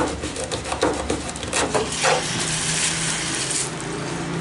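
A large kitchen knife cutting and crunching through the fins of a mahi-mahi on a wooden cutting board: a string of sharp knocks and crunches over the first two seconds. Then water from a tap runs into the sink with a steady hiss.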